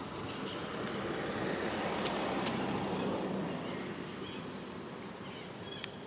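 A vehicle passing at a distance: a noise that swells over the first couple of seconds and fades away again.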